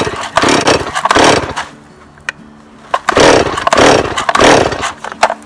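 Stihl 026 two-stroke chainsaw being pull-started: a series of short rasping bursts, each about half a second, with two near the start and three close together in the second half. The saw starts easily.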